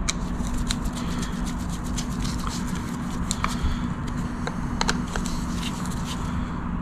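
Light, irregular clicks and ticks of a Torx screwdriver driving the two screws that hold the fuel sensor into a new fuel filter, over a steady low hum.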